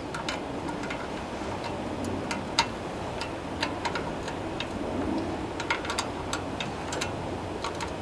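Open-end wrench on a stiff carburetor mounting nut of a Tecumseh 3.5 hp small engine: light metal clicks at irregular spacing as the wrench is re-seated and the nut is worked loose a bit at a time.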